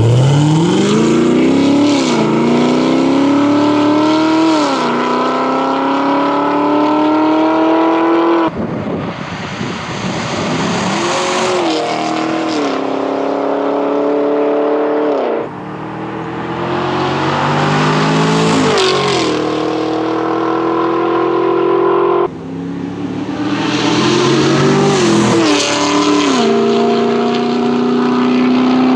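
A 2016–20 Chevrolet Camaro SS V8 in Tour exhaust mode, heard from outside as it accelerates hard away through the gears. The engine note climbs and drops back at each upshift. Four runs are cut back to back, comparing the stock manifolds and exhaust, a stainless axle-back, and full stainless headers with exhaust.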